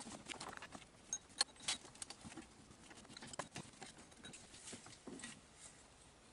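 Hand tools and parts being handled: quiet, irregular clicks and light knocks, the sharpest about a second and a half in.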